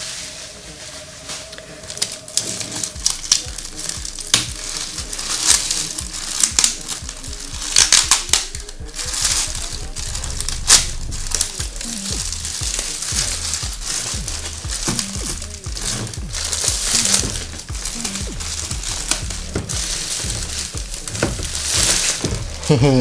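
Clear plastic film being crinkled and peeled off a cardboard model box, crackling in irregular bursts. Background electronic music with a steady beat plays underneath.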